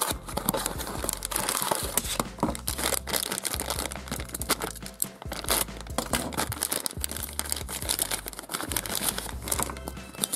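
Plastic wrapper and cardboard packaging crinkling and tearing as they are handled and pulled open, a dense run of short crackles, over faint background music.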